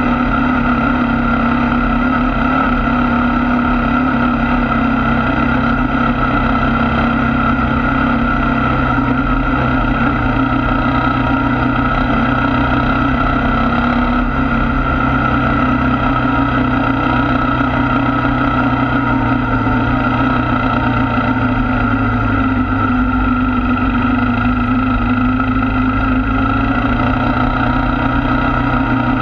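ATV engine running steadily while the machine rides along, heard from on board, with a constant drone that barely changes in pitch.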